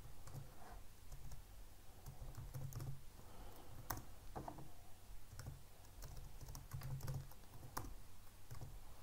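Typing on a computer keyboard: faint, irregular keystroke clicks with dull low thumps under them.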